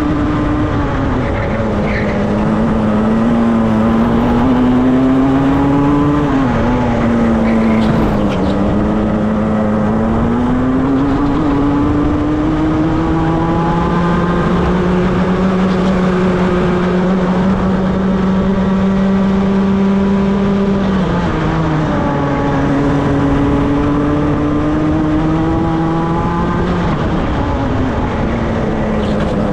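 A racing kart's engine heard from on board at full race pace. Its pitch climbs as it accelerates out of the corners, holds high along the straight, and drops sharply under braking three times. Wind and tyre rush run under it.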